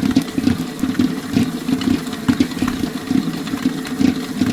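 Electric mixer running at high speed, beating butter and sugar together in the creaming stage: a steady motor hum with an uneven churning texture.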